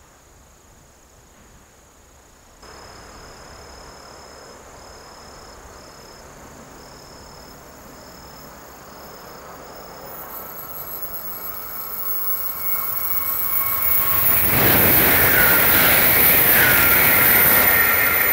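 Tokaido Shinkansen 923-type "Doctor Yellow" inspection train approaching and passing at speed. Its rush of noise grows over several seconds and is loudest near the end, with a high whine over it.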